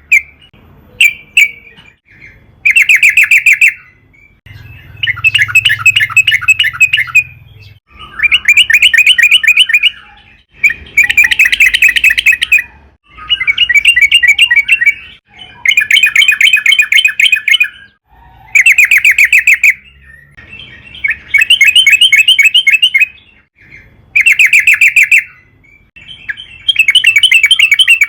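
Sooty-headed bulbul (trucukan) singing: a long run of fast chattering phrases, each one to two seconds long, with short pauses between them.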